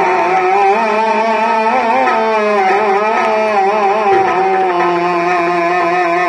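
Bhajan music between sung verses: a wavering, ornamented melody over a steady low drone.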